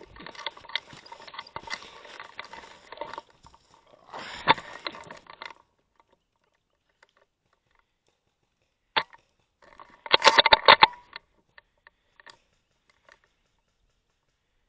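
Dry leaf litter rustling and crunching under a player's movement, in two spells, then quiet. About nine seconds in comes a single sharp snap, and just after ten seconds a rapid burst of about eight shots from an airsoft rifle.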